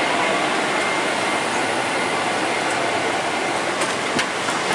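Steady cabin noise inside a Boeing 777-300ER airliner: an even rush of air and engine noise, with a faint steady whine and a few faint clicks near the end.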